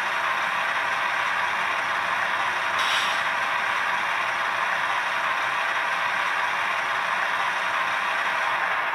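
A model locomotive's LokSound V4.0 sound decoder playing a GE ET44AC Tier 4 diesel engine running steadily in notch 3, heard through the model's small onboard speaker, with the air compressor running. There is a short hiss about three seconds in.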